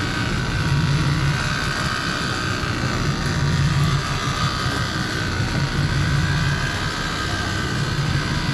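A motor running steadily: a low pulsing hum with a wavering high whine over it.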